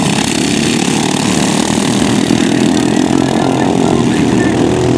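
Several racing ride-on lawnmower engines running hard together, a steady, dense small-engine buzz as the mowers lap the grass track.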